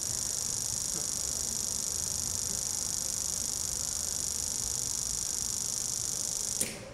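Steady high-pitched electronic hiss from the live electronics, holding level and then cutting off suddenly near the end.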